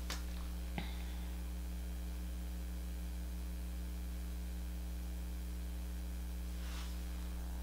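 Steady low electrical hum with a faint hiss, and one faint tick about a second in.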